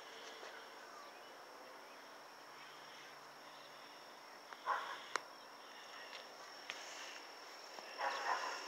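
Faint, steady, high-pitched insect trill, like crickets, throughout. A brief soft rustle comes about halfway, followed by a sharp click, and another rustle comes near the end.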